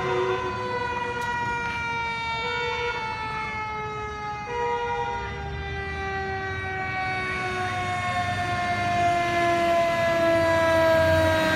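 Fire truck siren sounding one long tone whose pitch falls slowly and steadily, with the truck's engine rumble growing louder near the end as it approaches.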